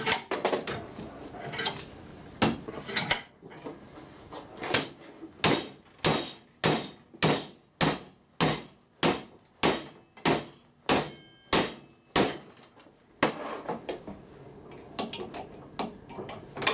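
Hammer blows on a welded 6 mm aluminium T-joint clamped in a bench vise, beating the upright plate over to break-test the fillet weld. A few scattered knocks come first, then a steady run of about fourteen sharp blows, roughly two a second, then lighter taps near the end.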